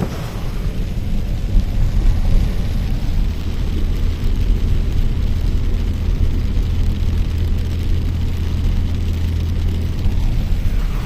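Steady low hum of a vehicle engine running, with a faint hiss over it.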